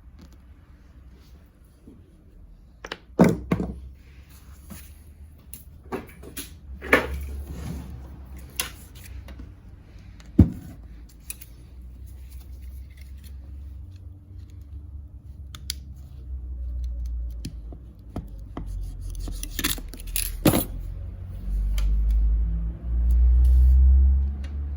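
Scattered metallic clinks and knocks of tools and parts being handled during car seat repair work, with a low rumbling handling noise swelling near the end.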